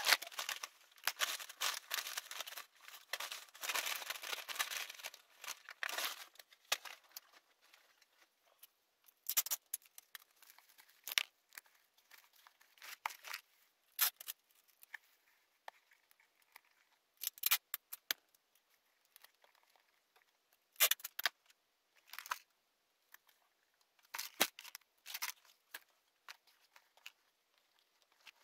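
Thin white wrapping sheet rustling and crinkling as it is folded and pressed around a box. It is a dense, continuous rustle for the first several seconds, then short separate crinkles and rustles with quiet pauses between them.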